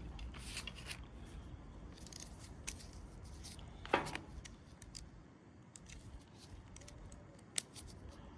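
Light, irregular metallic clicks and taps of starter motor parts and tools being handled, with one sharper knock about four seconds in.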